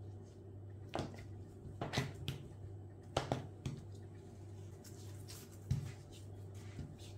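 Red plastic dough scraper cutting a dense cocoa-cake filling and tapping on a plastic cutting board: several sharp taps in the first few seconds, then one more knock near the end as the pieces are handled.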